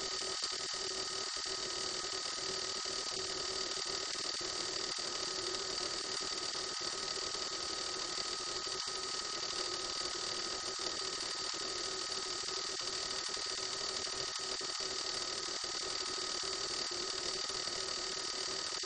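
Steady helicopter cabin noise picked up by an open microphone inside the cabin: an even hiss with a constant hum and a high whine, unchanging throughout.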